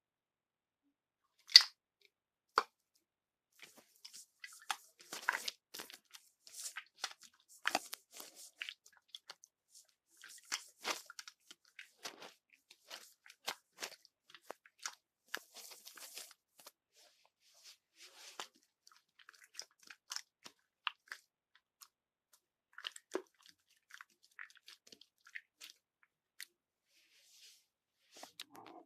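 Irregular crunching and crackling: two sharp clicks near the start, then a dense run of small crunches that thins out in the second half.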